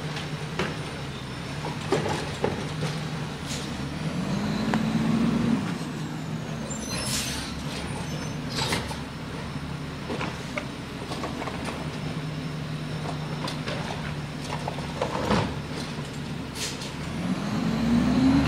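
Garbage truck engine running steadily, rising in pitch twice as it revs under load, with scattered knocks and a short air-brake hiss.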